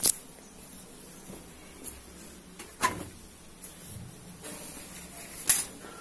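Clothes being loaded by hand into a top-load washing machine: three sharp knocks and clatters spread across a few seconds, with quieter handling sounds between them.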